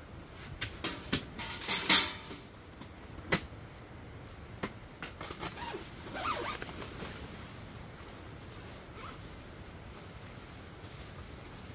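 Metal top panels of a folding camp table clattering and knocking as they are lifted and fitted into the frame, the loudest knock about two seconds in. Softer scraping and rustling of tent fabric follows around the middle.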